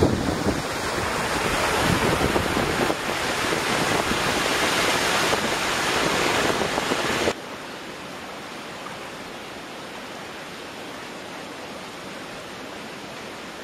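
Water rushing over a river side weir, loud and steady, mixed with wind on the microphone. About seven seconds in it drops suddenly to a quieter, steady rush of water.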